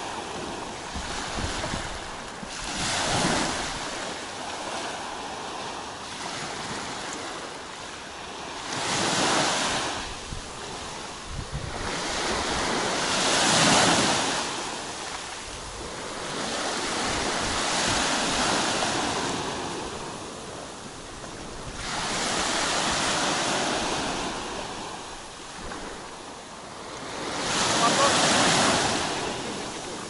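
Small waves breaking and washing up on a pebble shore, swelling and fading about every four to five seconds, with wind on the microphone.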